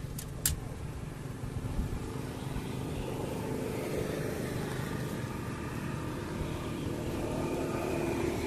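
A motor vehicle's engine runs steadily in the background as a low rumble, its faint tone swelling slightly toward the end. Two sharp metallic clicks come within the first half second as the wire trap's door and trigger wire are handled.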